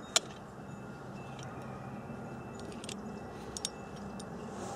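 Small metal clicks from a CZ-27 pistol's slide and recoil spring being handled and fitted back together: one sharp click just after the start, then a few lighter clicks and taps later on, over a low steady background.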